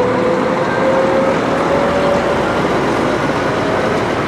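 Scania diesel coach (Marcopolo Paradiso 1200 G7) pulling away, the engine and road noise steady. Over it a whine rises slowly in pitch as the coach gathers speed, fading out about halfway through.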